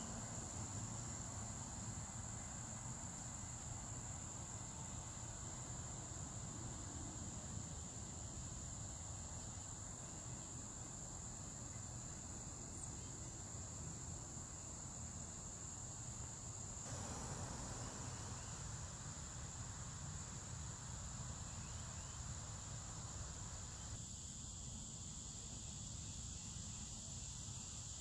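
A steady, high-pitched insect drone holding one pitch throughout, over a low rumble.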